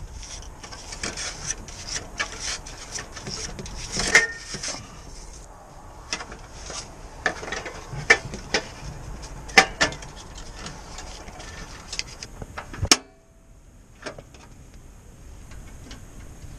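Handling noises of a propane cylinder being swapped on a portable propane heater: scattered clicks, knocks and rubbing, with a sharp click about three-quarters of the way through, after which the background drops for a moment.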